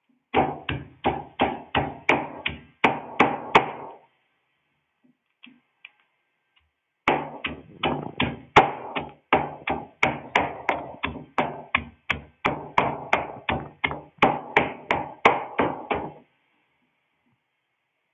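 Pestle pounding fresh herb leaves in a mortar with steady strikes, about two and a half a second: a run of about ten, a pause of about three seconds, then a longer run of about two dozen. The leaves are being crushed coarsely for a herbal decoction.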